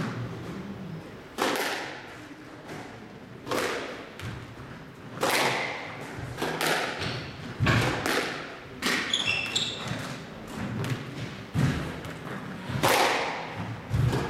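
Squash rally: the ball struck by rackets and smacking off the court walls with sharp hits about every one to two seconds, each ringing briefly in the court. A few short high squeaks of shoes on the court floor come around the middle.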